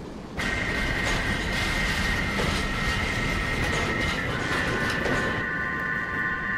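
Moving vehicle heard from inside: a steady rumble with a constant high whine, starting suddenly about half a second in.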